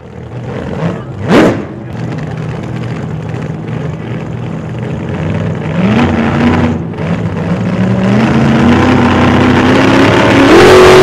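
A car engine accelerating, its pitch climbing in steps and its level building to the loudest point near the end. A brief, sharp rising sweep sounds about a second and a half in.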